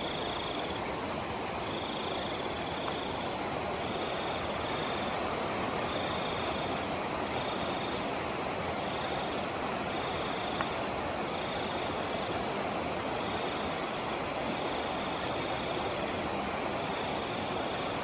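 Night forest ambience: a steady hiss with insects trilling high in repeated pulses about a second long, and a single faint tick about ten seconds in.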